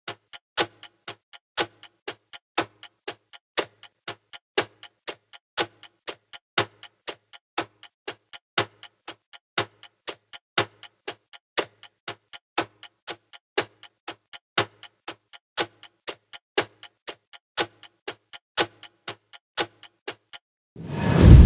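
Steady clock-like ticking, about four ticks a second, as a sound effect in the soundtrack. Near the end the ticking stops and a loud low boom hits.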